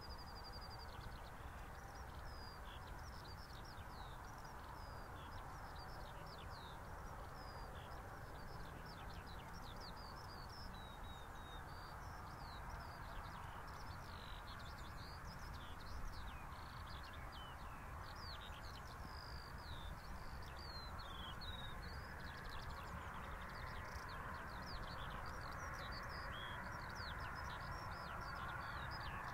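Continuous songbird chirping and trilling over the steady hiss of a Boeing 737's jet engines at taxi power, the engine sound slowly growing louder toward the end as the airliner rolls closer, with a low rumble underneath.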